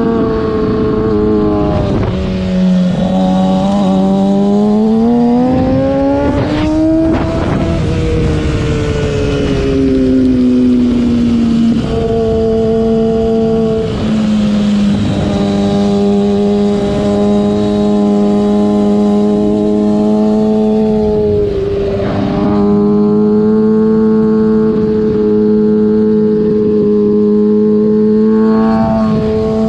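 Motorcycle engine under way on track, heard from the bike with wind rush. Its pitch climbs for a few seconds, falls away, then holds fairly steady, with short breaks and dips in the note a few times.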